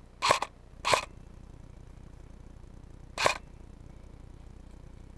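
Airsoft rifle firing three single shots, two in quick succession near the start and one more about three seconds in, each a short sharp crack.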